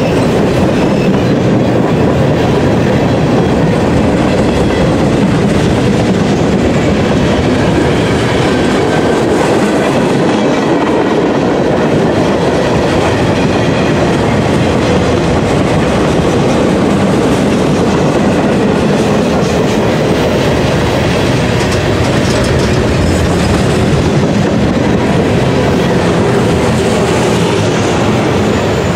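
Freight cars of a manifest freight train rolling past close by: a loud, steady rumble of steel wheels on the rails, with a clickety-clack over the rail joints.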